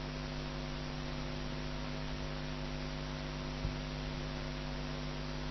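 Steady electrical mains hum with a faint hiss, from the recording chain. One faint click a little past the middle.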